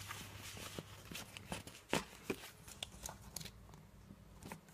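DVD packaging being handled by hand: a cardboard slipcover and plastic case rustling, with scattered light clicks, the sharpest about two seconds in.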